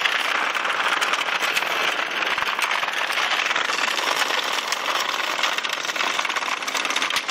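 Many Hexbug Nano vibrating toy bugs buzzing together in a plastic habitat: a steady, dense rattle of their tiny vibration motors and bristle legs on the plastic, peppered with quick clicks as they knock into the walls and into each other.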